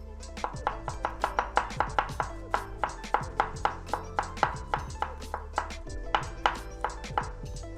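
Knife finely chopping a garlic clove on a cutting board: fast, even strokes, about five a second, over background music.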